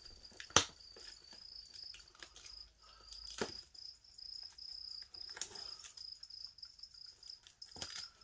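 A cricket chirping steadily at a high pitch, with a few sharp clicks and soft scraping from a knife cutting into a cardboard box. The loudest click comes about half a second in, another about three and a half seconds in.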